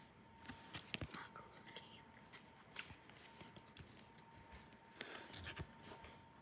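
Faint rustling and scattered small clicks of hockey card packs and cards being handled, louder about half a second in and again near the end, over a faint steady high whine.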